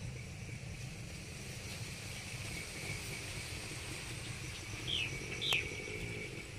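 Outdoor field ambience: a steady high insect drone with two quick falling bird chirps about five seconds in, over a constant low rumble.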